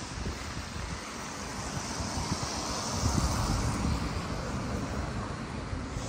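Wind buffeting the microphone over outdoor street ambience, with a broad hiss that swells and fades around the middle.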